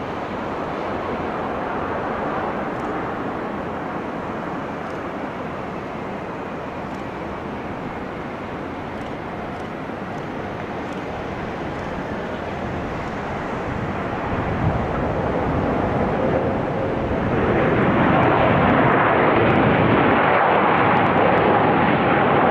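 Jet engine noise of an Airbus A380 landing, its four engines heard steadily through the approach and touchdown. The noise grows louder over the last third as the aircraft rolls out on the runway.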